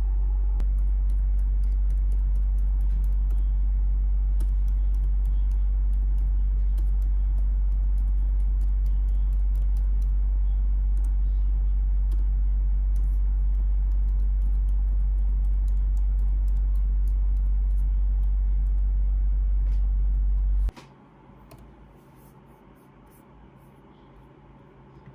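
Scattered light clicks and taps, typical of typing on a laptop keyboard and trackpad, over a loud, steady low hum. The hum cuts off abruptly about 21 seconds in, leaving only the faint clicks.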